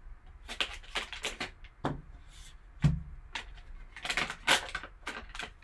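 A trading-card value pack being handled and opened: a run of short crinkles, rustles and clicks of packaging, with a dull knock about three seconds in.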